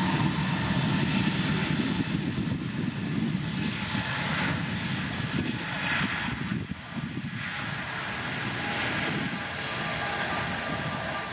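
Jet engines of an Airbus A320neo airliner running at high power during takeoff, a steady roar that eases off gradually toward the end.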